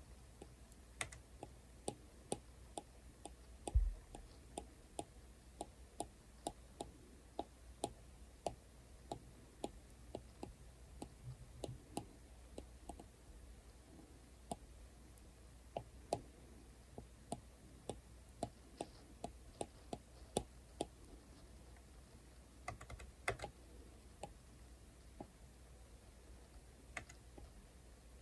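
Plastic stylus tip tapping on a tablet's glass screen with short drawing strokes: faint sharp clicks at an uneven pace, about two a second, with one duller knock about four seconds in.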